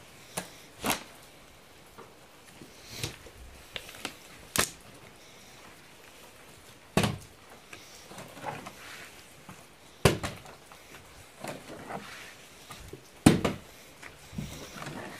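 Plastic water bottle being flipped and landing or toppling on a board, again and again: a string of sharp knocks a few seconds apart, with light handling noise between them.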